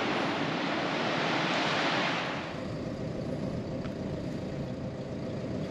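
A car driving: steady road and engine rumble, with a hiss that fades out about two seconds in.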